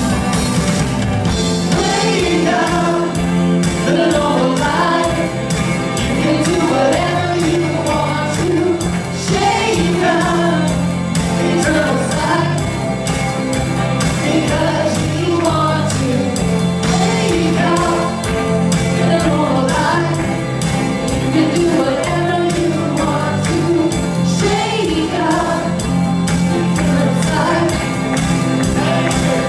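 Live worship music: women singing a song together into microphones, backed by a band with electric guitar, over held low notes that change every few seconds.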